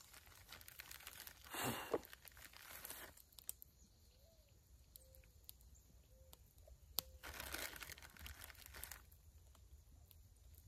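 Plastic bag crinkling faintly as it is handled to pinch pepper out of it, in two short spells: one about two seconds in and a longer one about seven seconds in.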